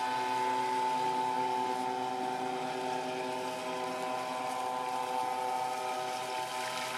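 Radio-controlled model speedboat's motor running at a steady speed, a constant even-pitched drone as the boat planes across the water.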